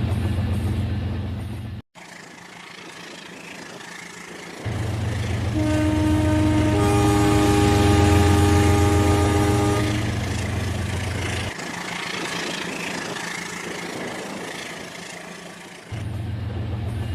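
Toy train's horn sounding one long multi-note chord for about four seconds, over a steady low running hum.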